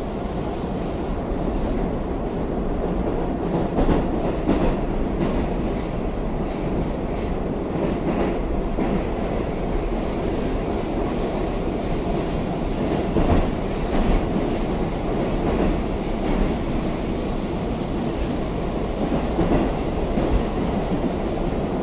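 Running noise of an 81-760/761 'Oka' metro train heard from inside the passenger car: a steady rumble of wheels and traction gear, with occasional clacks as the wheels pass over rail joints.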